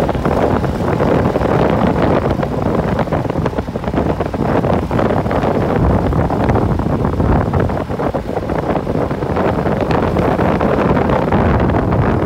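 Wind rushing over the microphone of a bike riding along a road, with the low rumble of the ride underneath and uneven buffeting throughout.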